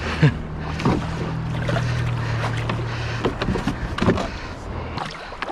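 Kayak hull scraping and rumbling over the shallow riverbed as it is pushed off the bank, with scattered knocks and clunks against the hull. The rumble stops about five seconds in, as the kayak floats free.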